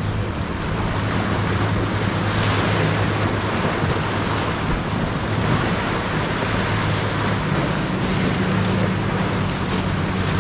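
Sea surf washing and breaking in a steady rush of water noise, with a low steady hum underneath.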